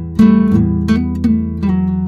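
Background music on acoustic guitar: strummed chords, with a strong strum about a fifth of a second in.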